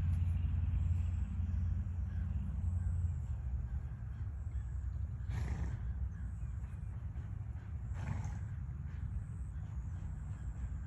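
A horse blowing air out through its nostrils twice, about two and a half seconds apart, over a low rumble that is strongest in the first few seconds.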